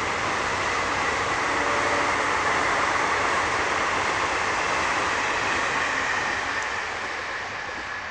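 Yellow ICF passenger coaches passing at speed, a steady rushing roar of wheels on rail that fades over the last couple of seconds as the end of the train pulls away.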